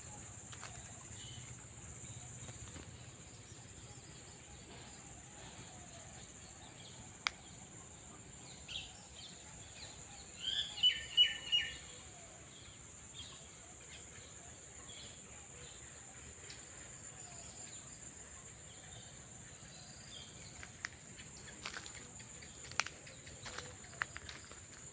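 Outdoor nature ambience: a steady, high-pitched drone of insects, with a bird calling a quick run of about four sharp notes around the middle. Faint scattered clicks and ticks are heard throughout.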